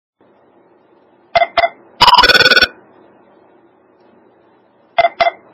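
Electronic cell phone ringtone: two quick beeps followed by a half-second burst of rapid warbling beeps. The two quick beeps start again near the end.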